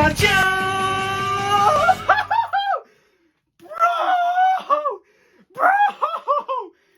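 An anime ending song closing on a held chord about two seconds in, then several short bursts of high-pitched laughter with pauses between them.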